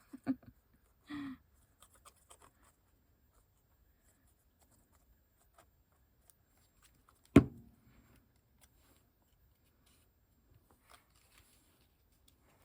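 Quiet handling of paper and card during crafting, with faint small taps and rustles, and one sharp knock about seven seconds in.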